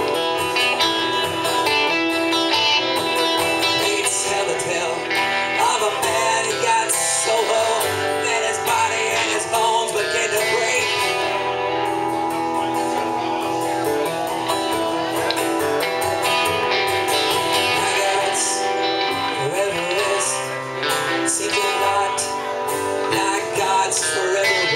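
Live duo of acoustic guitar strumming and electric guitar playing a lead line over it.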